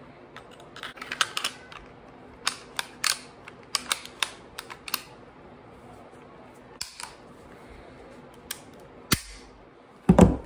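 Metal handgun parts clicking and clacking as a stripped pistol is put back together by hand. Most of the sharp clicks come in the first five seconds, a few more follow, and a heavier knock near the end is the loudest sound.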